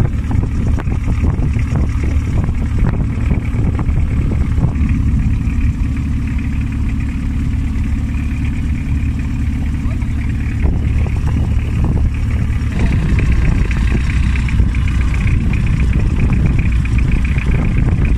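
Motorboat engine running steadily under way, a continuous low engine sound with no change in pace.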